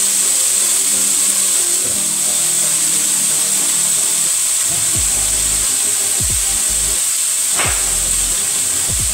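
Chopped onion, tomato, chilli, garlic and ginger sizzling in hot olive oil in a stainless steel pan with a steady hiss, just after being added, with background music.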